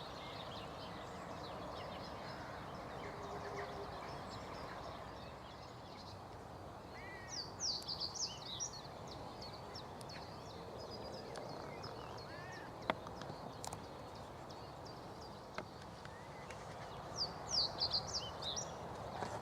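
A songbird singing two short, quick, high-pitched phrases about ten seconds apart, over steady outdoor background noise, with a single sharp click between them.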